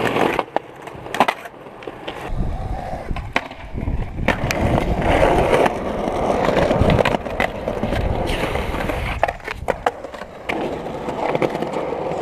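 Skateboard rolling on concrete, the wheels rumbling, with several sharp clacks of the board popping and landing. Near the end the board grinds along a concrete ledge.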